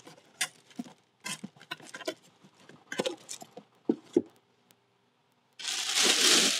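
Paperboard box flaps being folded shut and the boxes slid and set down on a table: a scatter of light taps and scrapes. After a short pause, a plastic bag rustles loudly near the end.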